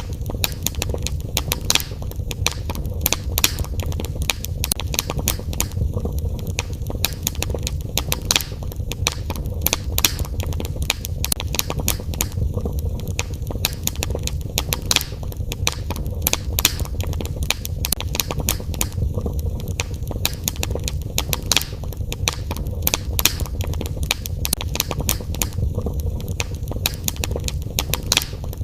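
Wood fire in a fireplace crackling, with constant sharp pops and snaps over a low rumble of the flames.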